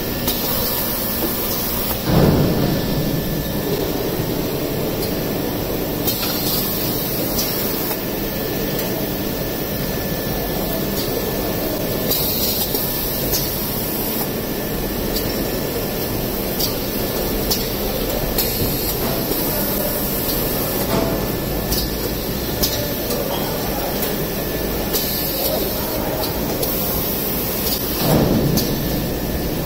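Automatic maxi-roll tissue packing line running: roller conveyors and a shrink-wrap machine with a steady mechanical running noise. Short bursts of hiss come every few seconds, and there is a louder surge of noise about two seconds in and again near the end.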